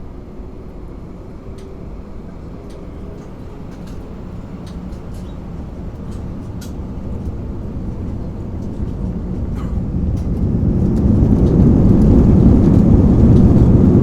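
Airplane taking off: a low engine rumble that grows steadily louder, swelling most from about ten seconds in, with scattered faint clicks over it.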